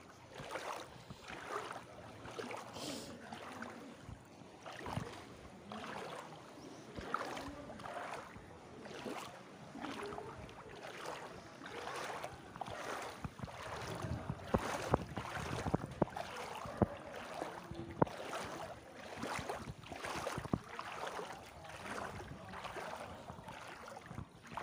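Wading through floodwater on a street, the water sloshing and splashing with each step in an uneven rhythm.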